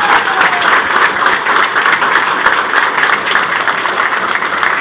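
Audience applauding: many people clapping at once in a dense, steady patter that eases slightly near the end.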